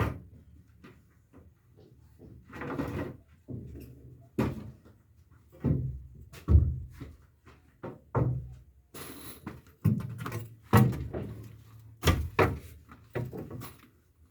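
Wooden 2x4 boards being handled: about a dozen irregular knocks and thumps, with a short scrape about three seconds in.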